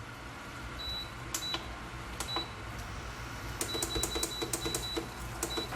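Metal spatula clinking against the cooking pan: a run of light clinks, each with a short high ring, most of them close together in the second half, over a low steady hum.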